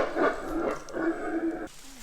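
Howler monkeys howling, a rough, pitched calling that cuts off abruptly near the end.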